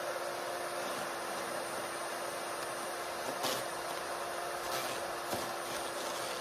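Electric wood chipper running steadily with a constant hum and a thin high whine, and a few short sharp cracks as sticks are chipped.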